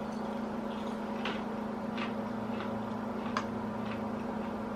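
A steady low hum in a small room, with a few short crisp clicks or crunches: snack eating and handling during a pause in the talk.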